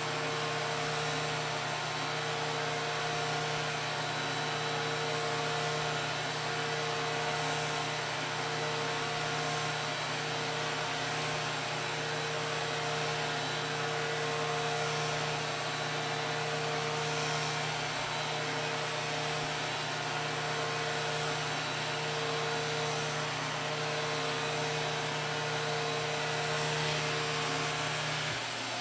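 Flowbee vacuum haircutter running steadily, cutting hair on a first pass. A vacuum motor draws air through the hose, with the hum of the clipper head. Near the end a lower hum stops while the vacuum keeps running.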